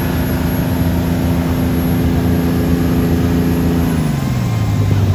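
Wakeboard tow boat's engine running steadily under way over rushing water, then throttled back about four seconds in, its pitch falling and settling lower, as the rider falls.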